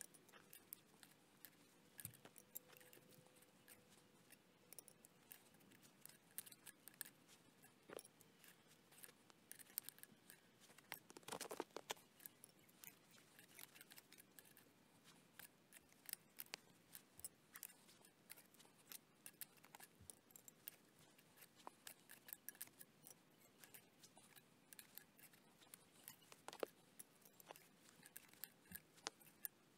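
Faint metallic clicks and scrapes of annealed 8 mm rebar being bent into staples in a steel pipe, with a louder run of clicks about eleven seconds in.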